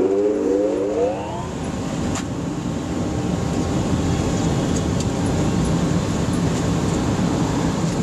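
Electric blower on a waste-oil burner whining, its pitch rising over the first second and a half. The burner then runs with a steady low rumble of combustion as the furnace catches and fires.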